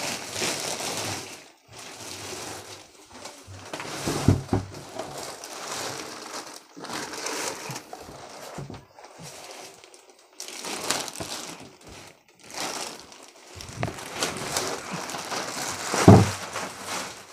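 A polythene bag rustles and crinkles in irregular bursts as it is pulled off a PA speaker cabinet. The cabinet knocks about four seconds in and gives a heavier thump near the end as it is shifted.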